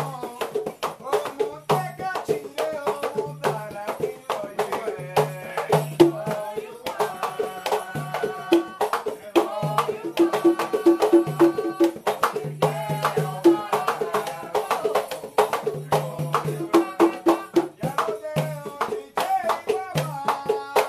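A set of three batá drums playing a fast, interlocking rhythm, with deep open tones from the largest drum among rapid slaps and strokes. Over the drums, a man sings a Lucumí song for Ochun.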